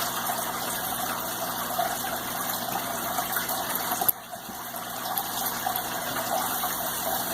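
Steady rushing background noise with a faint low hum, dropping away briefly about four seconds in.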